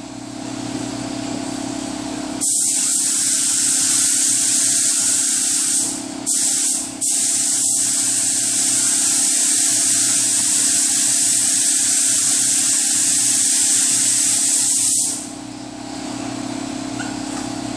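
Adhesion promoter being sprayed onto a vehicle's body panel: a loud steady hiss that starts a couple of seconds in, breaks off twice briefly, and stops near the end.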